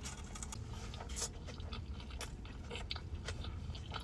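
A man biting and chewing a mouthful of steak taco with cabbage slaw close to the microphone: irregular small clicks and crunches, a few each second.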